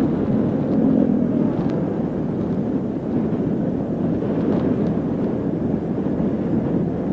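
Motorcycle running on the road, with a steady rush of wind and road noise over the microphone while riding.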